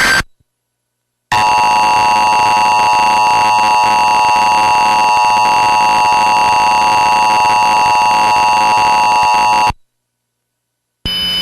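Emergency Alert System test: the last fraction of a SAME digital header burst, a second of silence, then the EAS attention signal, a steady two-tone alert held for about eight seconds before it cuts off sharply.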